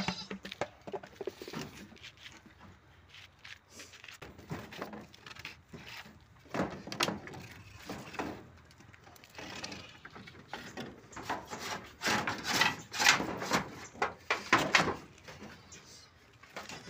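Wooden poles of a stick-built goat pen knocking and scraping as they are handled to open it: a run of irregular sharp clacks, busiest in the second half.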